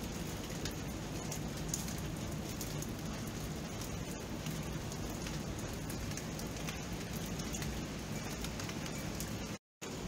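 Steady rain falling, an even hiss with many small drop ticks. Near the end the sound cuts out completely for a split second, then comes back.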